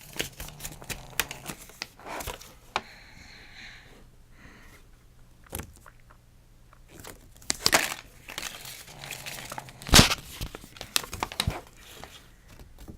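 Crinkly toy packaging being handled, crumpled and torn open by hand in irregular crackling bursts, the loudest about ten seconds in.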